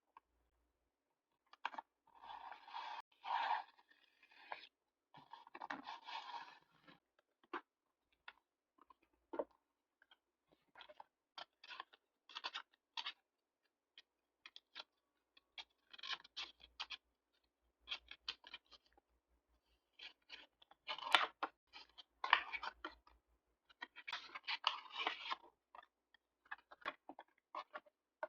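Paper and stationery being handled for journal decorating: intermittent rustling, crinkling and light taps, in short bursts with brief pauses between.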